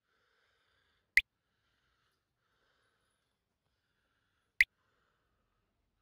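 Water drops falling from a damp rock ceiling in a small cave: two single sharp drips, about three and a half seconds apart, against near silence.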